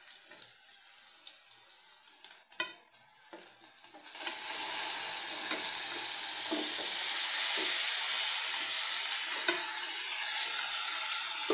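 Wet, boiled snake gourd pieces tipped into hot oil and onions in a metal kadai: after a few light scrapes and a sharp knock, the pan starts sizzling loudly about four seconds in and keeps sizzling under wooden-spatula stirring.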